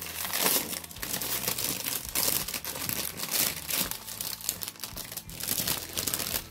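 Clear plastic wrapping crinkling and rustling, with quick crackles throughout, as it is pulled off an acrylic stamping platform.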